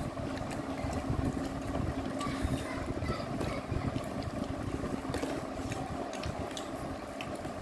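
A steady low mechanical hum with a faint even tone, likely from a fan or motor in the room. Scattered light clicks and taps from people eating by hand off plates sit over it.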